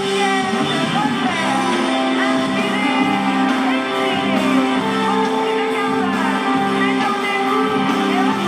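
Live rock band music: guitars and held chords, with singing.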